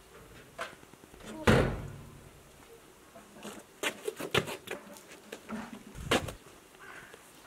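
A painted sheet-metal door banging shut about a second and a half in, the loudest sound. A run of light clicks and knocks follows, then a hollow clunk near the end as plastic water jugs are grabbed.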